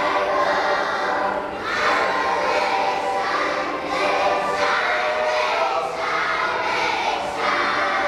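A large choir of kindergarten children singing together, in phrases that each last a second or two.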